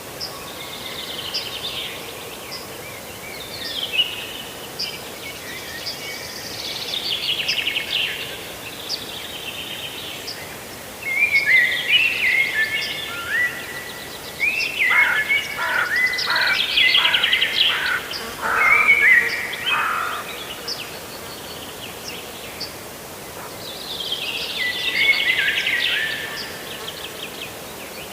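A songbird singing in repeated phrases of quick, high notes, some stepping down in pitch. The phrases are loudest in the middle stretch and return once more near the end, over a steady background hiss.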